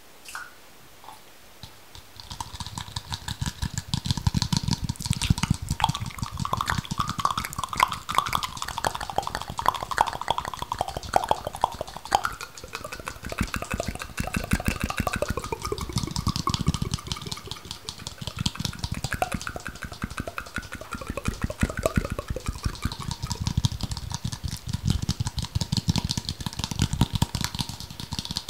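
Close-miked ASMR trigger sounds: a dense, fast run of clicks and crackles, starting about two seconds in, with faint ringing tones that slide in pitch.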